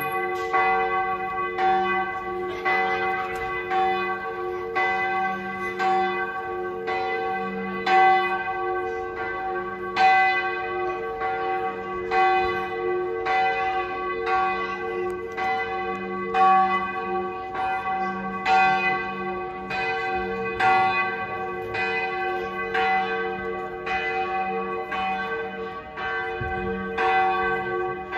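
Church bells ringing at noon, several bells swinging together so their strokes fall in a dense, uneven stream over a lingering hum.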